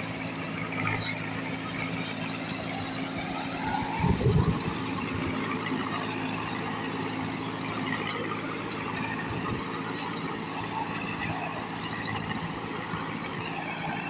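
Combine harvester running with a steady, even drone of several held tones, a sound likened to a helicopter's; a brief louder low rumble about four seconds in.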